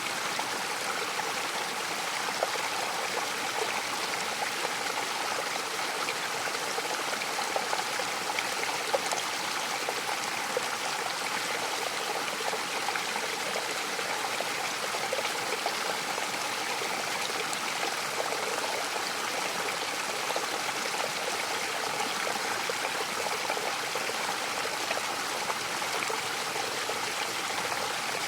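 Mountain waterfall rushing steadily, an even wash of falling water with small splashes throughout.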